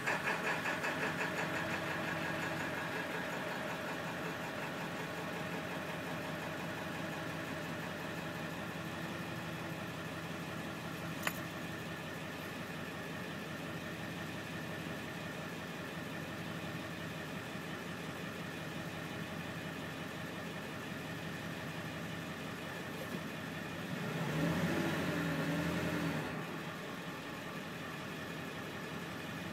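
A 2001 Ford F-450's 7.3-litre Power Stroke V8 turbo-diesel idling steadily, easing down over the first few seconds after a hard warm restart. There is a single sharp click about 11 seconds in and a brief louder swell around 24 to 26 seconds.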